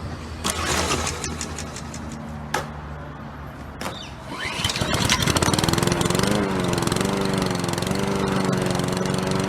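Lawn mower being pull-started: a few sharp tugs on the starter cord, then about halfway through the engine catches and runs steadily.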